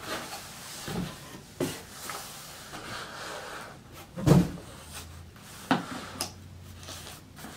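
Cardboard boxes being handled and set down: scraping and rubbing with a few dull knocks, the loudest about four seconds in.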